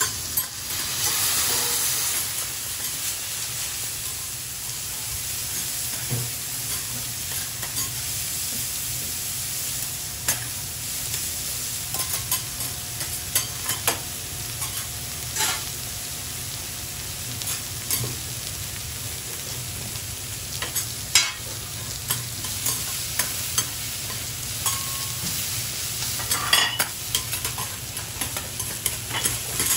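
Food sizzling on a hot steel teppan griddle, cabbage and noodles for Hiroshima-style okonomiyaki frying, with frequent short clicks and scrapes of metal spatulas on the griddle. A louder burst of hissing comes about a second in.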